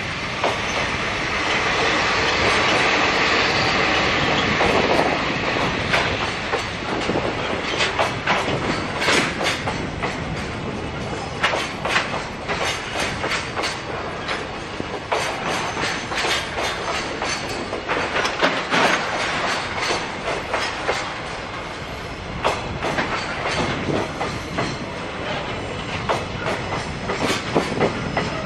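Diesel locomotive DD56 1 running past close by, followed by a string of Koki container flatcars rolling past. Their wheels click over the rail joints in clusters every few seconds.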